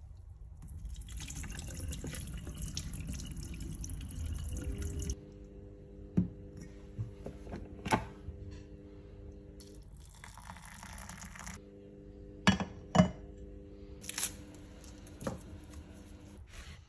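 Kitchen tap running into a steel bowl as lentils are rinsed, for about the first five seconds. After that comes a steady low hum with a few sharp clicks and knocks, and a second short rush of water a little past the middle.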